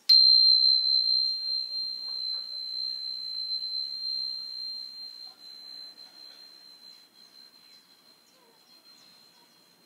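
High-pitched tuning fork struck once, ringing a single pure tone that fades away over about eight seconds.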